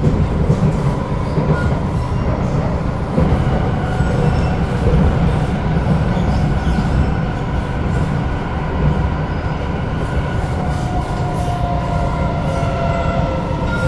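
SMRT C751B metro train heard from inside the carriage while it runs between stations: a steady loud rumble of wheels on rail. Faint higher steady tones join in from about ten seconds in.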